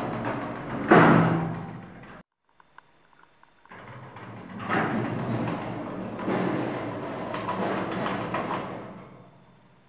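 Automatic sliding doors of a passenger elevator closing, meeting with a loud bang about a second in; after a short pause they slide back open with a drawn-out rolling noise that fades out near the end.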